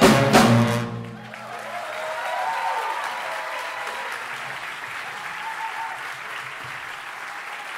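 A jazz big band's closing hit: a sharp full-ensemble accent that rings out for about a second. Then the audience applauds, the clapping swelling about two seconds in and holding steady.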